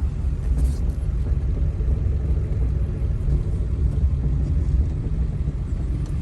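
Steady low road rumble of a four-wheel-drive vehicle being driven, engine and tyres heard from inside the cab.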